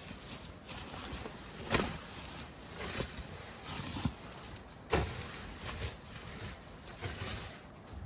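Strong wind gusting against the vehicle, swelling and easing unevenly, with sudden sharp knocks about two seconds and five seconds in.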